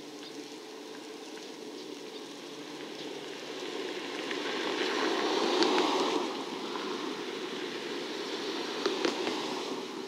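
A rope-driven suspended monorail car running past along its elevated guideway. It makes a rushing rumble that builds to a peak about six seconds in and then eases off, with a couple of sharp clicks near the end.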